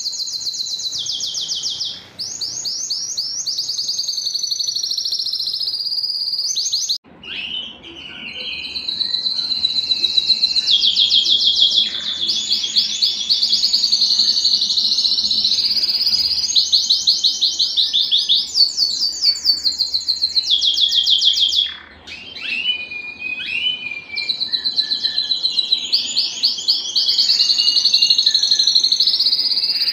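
Domestic canary song: rapid, high trills and rolling phrases that change every second or two. It breaks off briefly about seven seconds in and dips again near twenty-two seconds.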